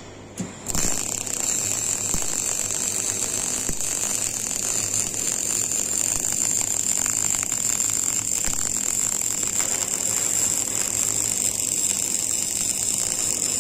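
MIG welding arc: a short arc strike just under a second in, then a continuous weld, a steady loud crackling hiss.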